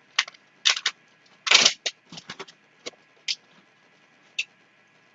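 Groceries and their packaging being handled and unpacked: a series of short rustles and clicks, the loudest a longer crackle about a second and a half in.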